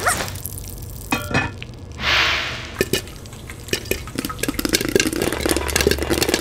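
A glass lid clinks onto a frying pan and a short hiss follows. Then popcorn kernels start popping in the covered pan, a few pops at first, coming quicker and thicker toward the end.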